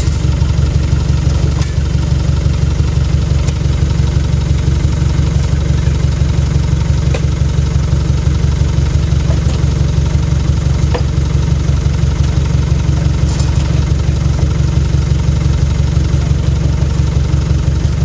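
Truck engine idling steadily with a rapid even throb. A few faint knocks sound now and then as oil palm fruit bunches land on the load.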